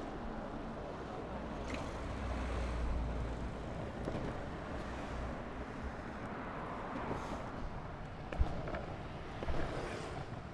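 Longboard wheels rolling over asphalt, a steady rumble, with two short clacks near the end as the board goes over bumps in the road.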